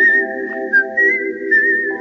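Background music: a whistled melody over a steady, pulsing chord accompaniment, changing chord near the end.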